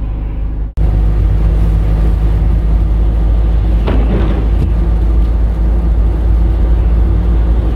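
Steady low rumble of a car being driven, heard from inside the cabin: engine and road noise. It breaks off sharply under a second in and resumes at once.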